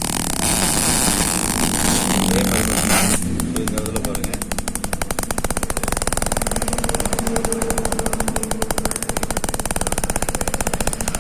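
High-voltage arcing inside a CRT television: a continuous electrical crackle that about three seconds in turns into a fast, even run of sharp snapping sparks. The spark sound is the fault the set came in with.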